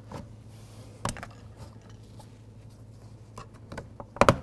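Pick or plastic trim tool working under an interior door trim piece: scattered light clicks and scrapes, then a louder double click near the end as the trim clips give.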